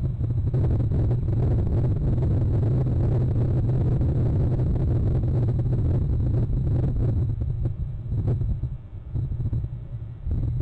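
A loud, steady low rumble that drops off and wavers about eight seconds in, then picks up again near the end.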